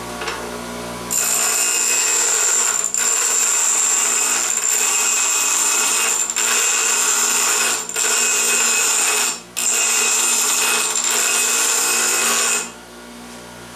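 Bench grinder wheel grinding the end of a 1/2-inch metal pipe nipple to a bevel for a hole-punch cutting edge, the pipe turned continuously against the wheel. A loud, high-pitched grinding hiss starts about a second in, with brief dips every second or two, and stops near the end, leaving only the lower hum of the grinder running free.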